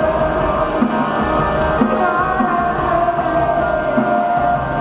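A rock band playing live, with electric guitar holding long, sustained notes over the band.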